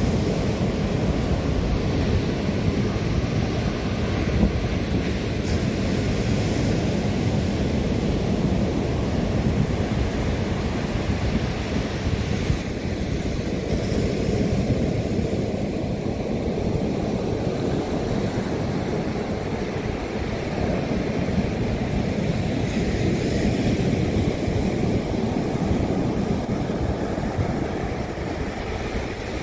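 Ocean surf breaking and washing up the beach, with wind rumbling steadily on the microphone.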